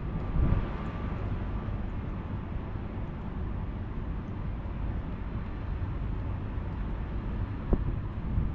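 Steady low rumbling noise of wind buffeting an outdoor microphone, with one sharp click near the end.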